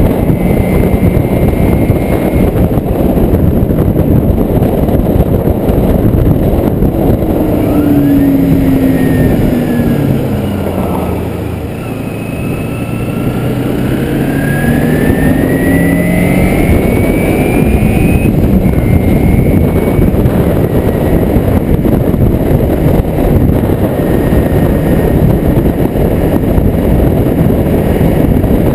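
Kawasaki Ninja motorcycle being ridden, with a heavy rush of wind noise on the microphone. The engine note drops as the bike slows about eight seconds in, then climbs again as it speeds up from about twelve seconds.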